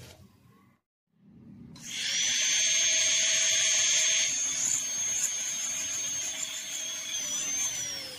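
Dental handpiece with a round bur starting up about two seconds in and running with a steady high-pitched whine while it cuts the access opening into a plastic practice molar. The whine falls in pitch near the end as the bur spins down.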